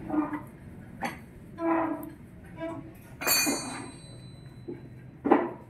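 Metal tool clinking against an aluminium scooter engine crankcase during assembly: a ringing metallic clink about three seconds in, a few lighter knocks, and a sharp knock near the end.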